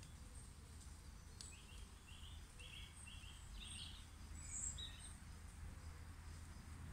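Faint outdoor background with a low rumble, and a distant bird singing a short run of five quick, evenly spaced high notes, followed by one more note a second later.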